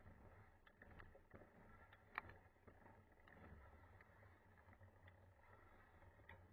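Faint low rumble with scattered light ticks and rattles from a mountain bike, with one sharp click about two seconds in.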